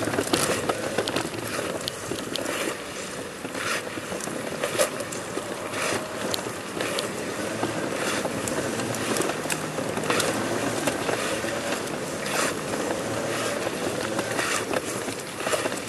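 A person army-crawling across stone paving: clothing and shoe soles scraping and rasping on the stone in irregular strokes about every second or two.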